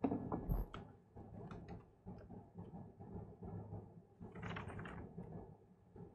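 A large book being lifted and opened: a few knocks as it is picked up, then paper rustling and handling noise, with a louder page rustle about four and a half seconds in.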